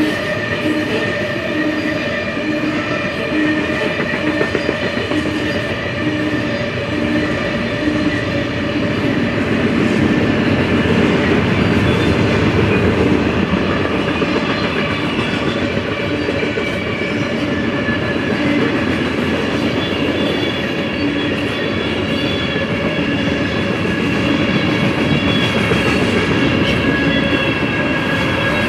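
Cars of a mixed freight train rolling steadily past: covered hoppers, then boxcars and tank cars. Their steel wheels give a continuous rumble and clatter on the rail, with several thin, steady ringing tones above it.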